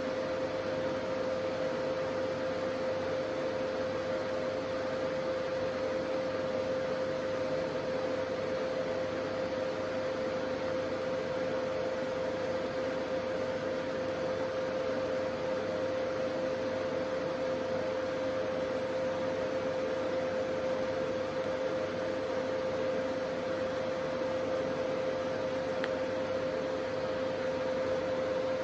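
TIG welding on a steel exhaust pipe, heard as an even hiss with a constant mid-pitched hum, steady and unchanging throughout.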